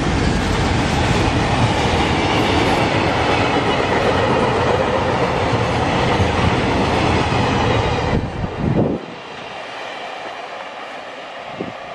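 Freight train of oil tank wagons rolling past close by: a loud, steady rumble of steel wheels on the rails. About eight or nine seconds in, it drops sharply to a quieter, more distant rumble as the end of the train moves away.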